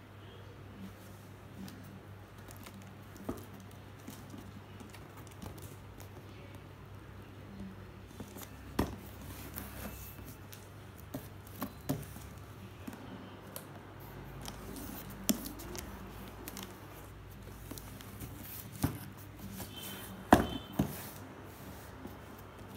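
A cardboard box being handled on a table: picked up, turned over and set down, giving scattered taps and knocks, the loudest two close together near the end, over a steady low hum.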